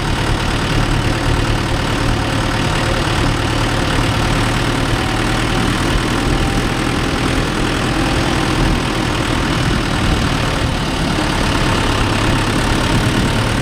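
Mahindra Yuvo Tech+ 585 4WD tractor's diesel engine running steadily at an even speed.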